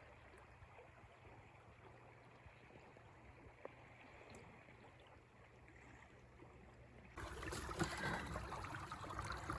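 Faint flowing river water, then about seven seconds in a louder, rushing water noise starts abruptly.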